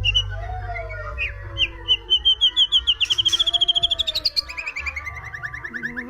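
White-rumped shama singing: a fast run of short whistled notes that climbs in pitch, then a falling run of notes near the end.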